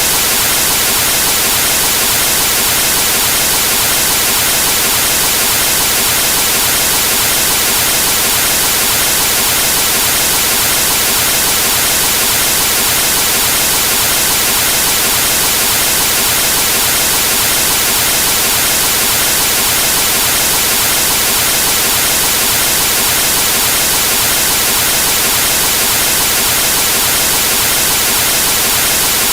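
Television static from a set with no signal: a loud, steady hiss of white noise, brightest in the high end, unchanging throughout.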